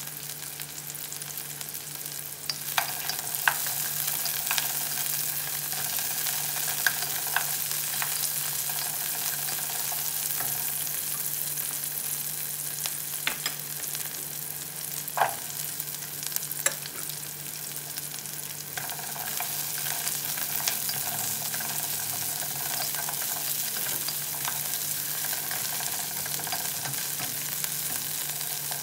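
Garlic, onion and fresh turmeric sizzling in hot oil in a pot, stirred with a wooden spatula that clicks and knocks against the pot now and then, the loudest knock about halfway through.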